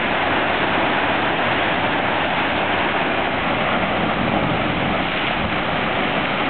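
Steady rush of ocean surf, an even, unbroken noise.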